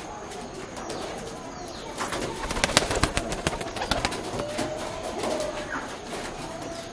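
Domestic pigeons cooing in low, short calls. About two seconds in comes a dense run of sharp clicks and taps lasting a couple of seconds.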